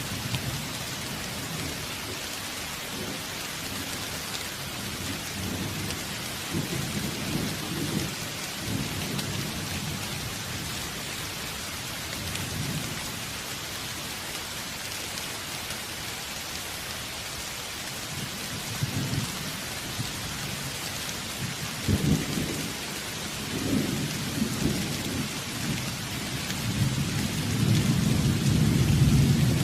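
Steady rain with intermittent low rolls of thunder: a sharp crack about two-thirds of the way in and a longer, louder rumble near the end.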